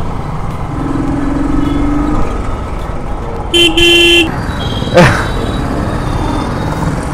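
Steady low rumble of a motorcycle riding through city traffic, with vehicle horns honking: a faint held horn about a second in and a loud horn blast about three and a half seconds in. A brief sharp sweeping sound follows about five seconds in.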